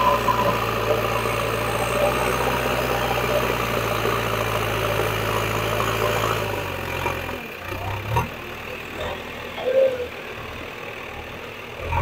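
JCB 3DX backhoe loader's diesel engine running steadily as its front bucket pushes soil. About seven seconds in the engine sound drops away sharply and becomes much quieter, with a couple of brief thumps after.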